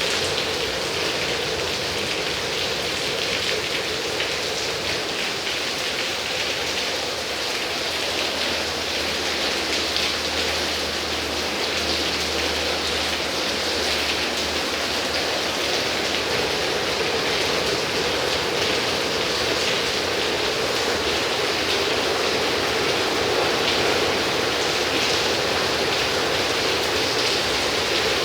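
Heavy rain falling steadily, pattering on surfaces.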